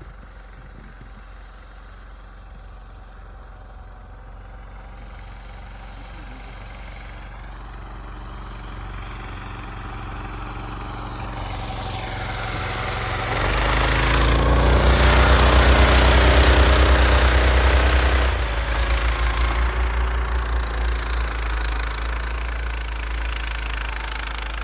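Motor vehicle engine running and coming closer, growing steadily louder to a peak about two-thirds of the way through, then easing off as it moves away or slows.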